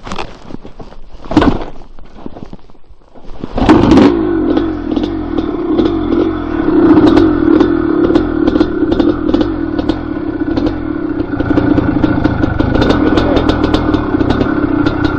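Dirt bike engine opening up loudly about four seconds in and then running steadily under load, after a few knocks. Sharp clicks and clatter sound over the engine throughout.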